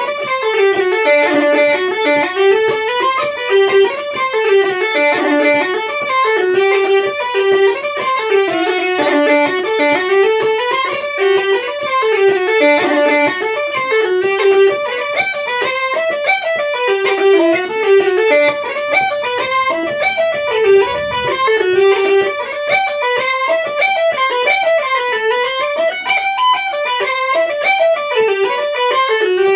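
Two sets of uilleann pipes playing a traditional Irish tune together, the chanters carrying a continuous melody of quick notes without a break.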